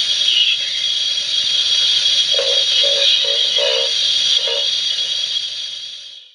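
A steady, loud hiss with five short low tones about halfway through, fading out at the end.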